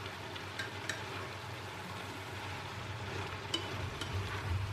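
Vegetables and tofu sizzling in a frying pan as a spatula stirs them, with a few light clicks of the spatula against the pan.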